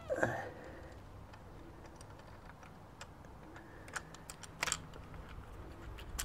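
Light clicks and taps of hand-held parts being worked through a motorcycle tail tidy bracket, with a louder handling rustle just at the start and a few sharper clicks past the middle.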